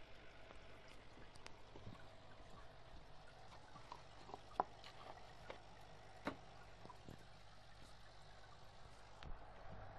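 Faint trickling aquarium water over a low steady hum, with a few light clicks around the middle.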